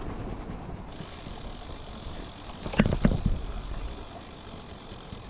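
Wind rumbling on the microphone while moving along a country lane, with a couple of sharp knocks close together about three seconds in.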